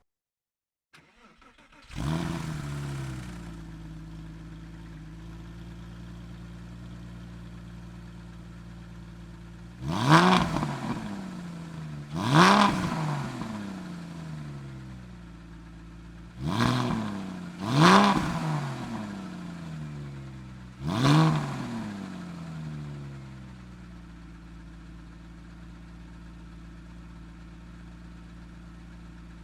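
Porsche 996 flat-six engine started: the starter cranks briefly, the engine catches with a rev flare and settles to a steady idle. It is then blipped five times, each rev rising sharply and falling back, before it idles again.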